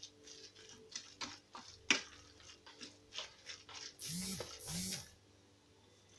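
Wooden spoon scraping and tapping in a frying pan, a run of short strokes as a thick vegetable filling is stirred. About four seconds in come two short, loud rushing bursts.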